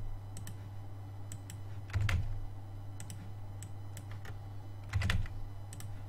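Computer keyboard and mouse being used: scattered sharp clicks, with two heavier key presses about two seconds and five seconds in, over a steady low hum.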